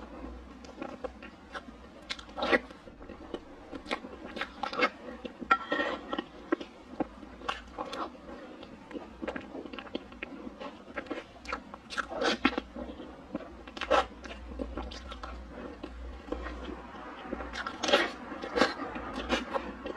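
Close-miked eating of soft chocolate mousse cake: chewing and wet mouth smacks, with many short sharp clicks at irregular intervals.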